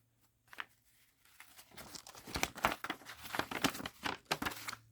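Paper rustling and crinkling as a folded paper leaflet is handled and opened out: a quick run of crackles starting about a second and a half in and stopping just before the end.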